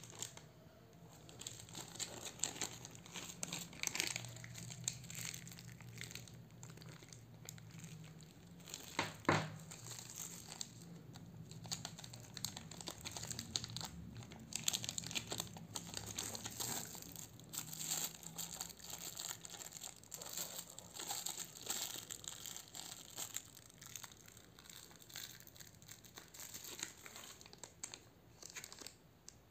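Clear plastic packaging bags crinkling and rustling in the hands as they are handled and opened, in irregular bursts. A single sharp knock about nine seconds in.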